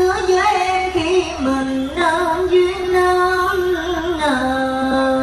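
A boy singing a slow melody into a microphone over a PA, holding long wavering notes that step down in pitch and back up.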